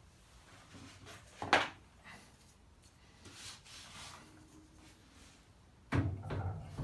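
Hands working on table saw fence rail hardware: one sharp clack about a second and a half in, faint handling and rubbing, then a quick run of knocks and clunks near the end.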